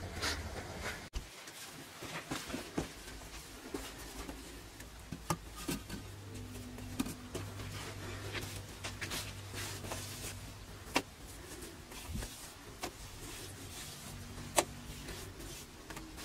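Stones being handled and set on an earth floor: scattered light scrapes and knocks, with two sharper clicks near the end.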